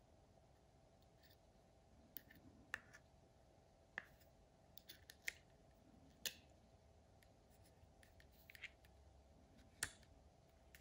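Small chrome sockets of a Wera Tool-Check Plus set being handled and clicked onto their holder pins in the plastic case: a run of about seven light, sharp clicks at uneven intervals.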